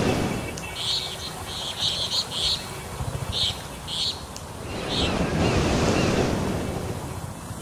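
Floodwater sloshing and rushing around vehicles driving through a flooded road, with wind noise on the microphone; the rushing swells louder about five seconds in. About ten short, high-pitched chirps come at irregular intervals over the first five seconds.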